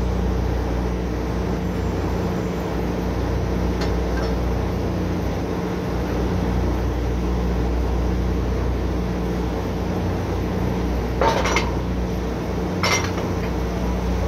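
Drilling rig machinery running with a steady, even hum. Near the end come two sharp metal-on-metal clanks, a second and a half apart.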